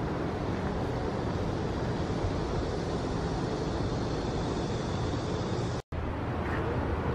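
Steady outdoor background noise with a low rumble, cut off briefly about six seconds in.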